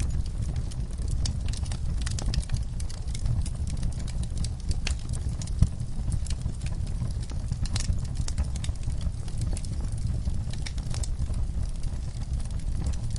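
Wood fire burning in a fireplace: a steady low rumble of flames with irregular crackles and pops, one louder pop about five and a half seconds in.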